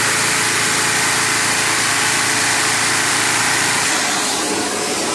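LEGO inline-six vacuum engine running fast on suction: a loud, steady rush and plastic clatter of six pistons and valves. Near the end it begins to wind down as it is shut off.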